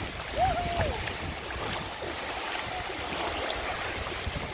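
Steady rush of running water. About half a second in, a brief pitched tone rises, holds and falls away.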